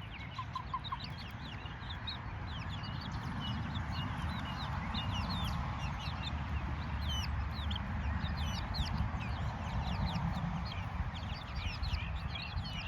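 A flock of young free-range chickens peeping and clucking: many short, high chirps overlapping throughout, over a steady low rumble.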